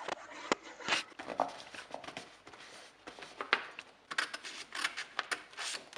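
Paper rustling and crinkling in short, irregular bursts, with a few light taps, as decorative paper is handled and pressed onto a small cardboard box.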